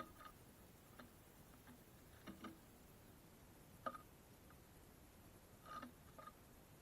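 Faint, irregular ticks and taps from small birds pecking and hopping at a wooden bird feeder, about six in all, over a near-silent background.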